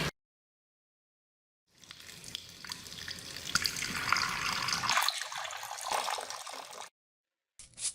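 Tap water running and splashing into a sink, with small clicking knocks in it. It starts about two seconds in and cuts off abruptly near the end.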